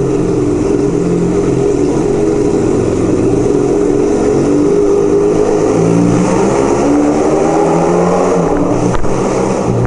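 1975 Kawasaki KZ400 cafe racer's parallel-twin engine running loud inside a parking garage, its revs rising and falling a few times. Loud enough to set off parked cars' alarms.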